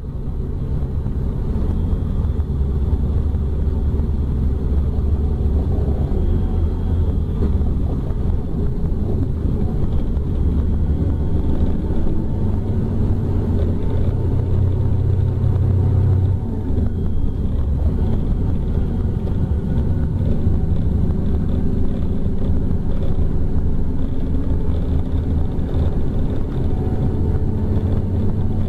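Scania K310 coach engine heard from inside the passenger cabin while driving, a steady low drone. It grows louder a little past the middle, then drops off suddenly about sixteen seconds in.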